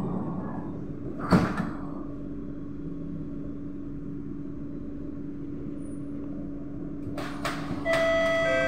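Kawasaki-Sifang C151B train doors sliding shut with one loud thump about a second in, over a steady hum. Near the end a couple of clicks are followed by a set of steady electric tones that start abruptly, as the train gets ready to pull away.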